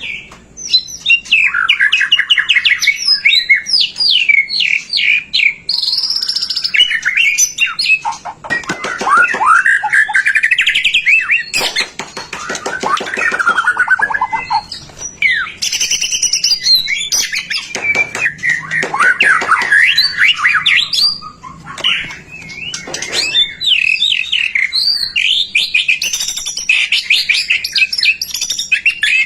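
White-rumped shama (murai batu) in full, vigorous song: a long, varied run of rapid trills, fast repeated notes and whistled glides, with only brief pauses.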